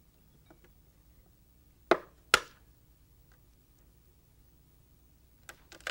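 An egg knocked twice against the edge of a wooden bench to crack its shell: two sharp knocks about half a second apart, about two seconds in.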